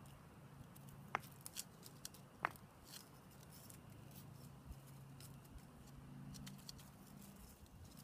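Quiet ambience with a low steady hum, broken by faint crackles and ticks of dry leaves and twigs as a kitten and a small dog move over leaf litter; two sharper clicks about one and two and a half seconds in.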